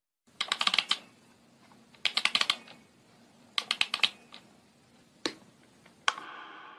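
Three quick bursts of rapid typing clicks, then a single click, then a sharp click followed by a ringing tone that fades slowly.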